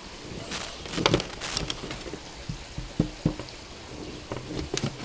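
Chef's knife cutting dry-aged beef trimmings on a metal sheet pan: irregular clicks and scrapes as the blade strikes and slides on the pan, the sharpest about a second in and around three seconds in.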